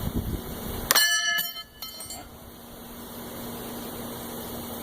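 A steel throwing knife strikes the target with a sharp metallic clank about a second in, the blade ringing briefly after the hit.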